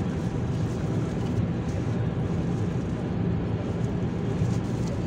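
Steady road and engine noise of a car travelling at speed on a motorway, heard from inside the cabin as a low, even rumble.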